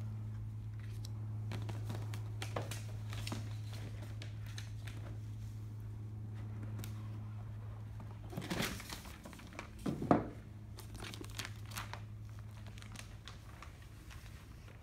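Paper and cardboard of a large gift box rustling and crinkling as it is handled and its card and ribbon are taken off, with a louder scrape and knock about ten seconds in as the lid comes off. A steady low hum runs underneath.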